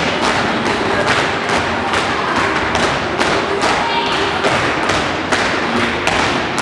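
Flamenco footwork (zapateado): shoes stamping and tapping on a floor in a steady rhythm of about three strikes a second, with faint music underneath.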